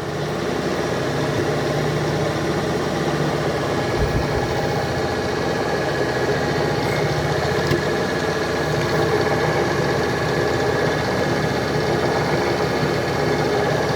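Drilling machine running steadily with a metric twist drill bit pressed into mild steel but not cutting. The bit was never hardened, so its tip is rubbing and barrelling over instead of biting.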